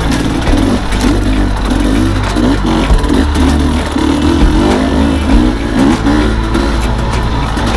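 Enduro dirt bike engine being ridden along a bush trail, its revs rising and falling over and over with the throttle, with the rumble of riding and wind on the helmet camera.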